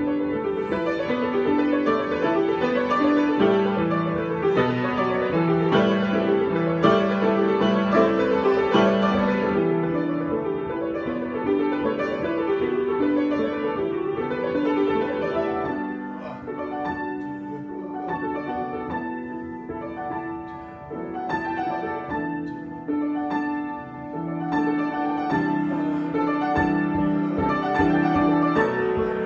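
Solo piano improvisation: flowing chords and melody, easing into a softer, sparser passage about halfway through before filling out again near the end.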